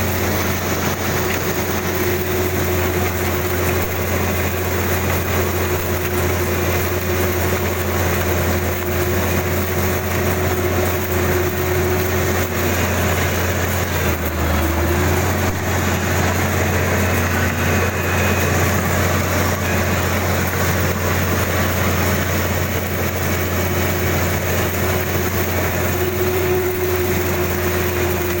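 Kubota DC-35 combine harvester's diesel engine running steadily, with a brief drop in pitch about halfway through.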